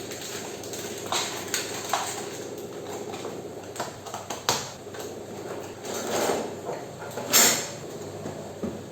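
Kitchen items being handled and set down: scattered knocks and clinks, one louder knock late on, over a steady hum.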